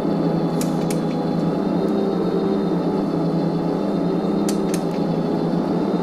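Steady, dense droning sound effect played from a vinyl Halloween sound-effects record, with a few sharp record clicks.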